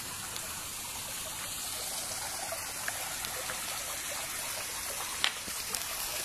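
Steady trickle of running water flowing into a fish pond, with a short sharp knock about five seconds in.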